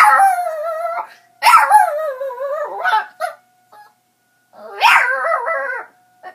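Chihuahua howling in three long, wavering howls, one after another, over the faint steady tone of a tornado siren.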